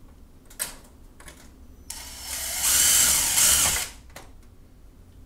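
Cordless drill driving a self-tapping screw into the sheet-metal light fixture. It runs for about two seconds, louder in its second half, then stops as the screw seats. A single click comes shortly before.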